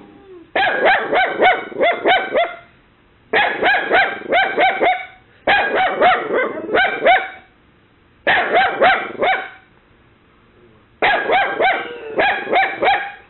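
Miniature Dachshund puppy alarm-barking, shrill and high-pitched, in five rapid bursts of several barks each with short pauses between them: barking at an imagined intruder after a knock.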